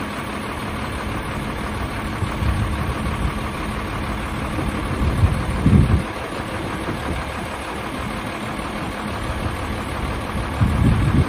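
Heavy truck diesel engine idling steadily, with two brief low rumbles, one about halfway and one near the end.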